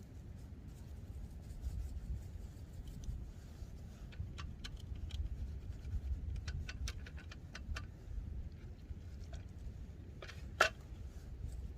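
Irregular light clicks and taps from handling cooking items while seasoning food, over a low steady rumble, with one sharper click near the end.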